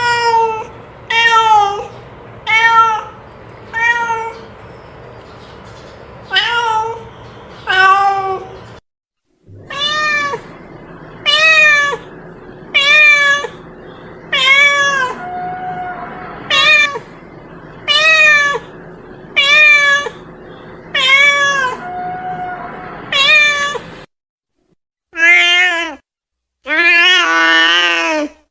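Domestic cat meowing over and over, about one short meow a second, each rising then falling in pitch. Near the end, after a short pause, come two longer, drawn-out calls, the last one wavering.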